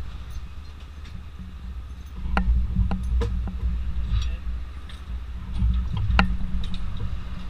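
A vehicle engine idling with a steady low rumble, and a few sharp metallic knocks and clanks. The loudest knock comes about six seconds in.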